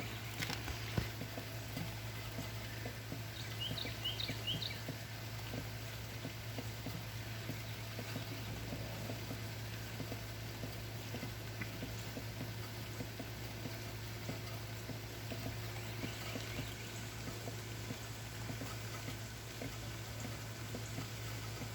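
Steady rain falling, with small irregular drips and a low steady hum underneath. A bird gives a quick run of four short high chirps about four seconds in, and faint calls follow later.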